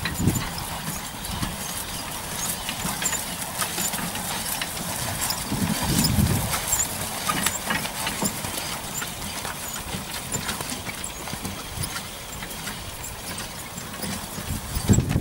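A horse trotting in harness on grass, pulling a four-wheeled carriage. Its hoofbeats mix with many short clicks and rattles from the carriage and harness.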